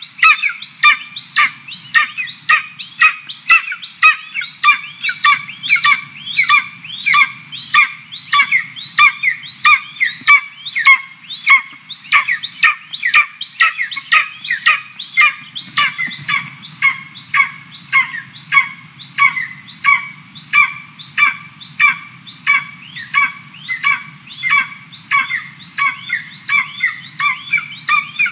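Young golden eagle begging for food at the nest: a high-pitched call repeated evenly about twice a second without a break.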